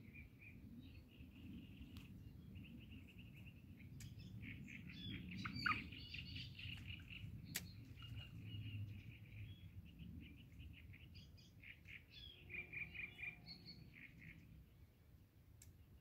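Small songbirds chirping and singing continuously, faint, over a low steady rumble, with a few brief sharp clicks around the middle.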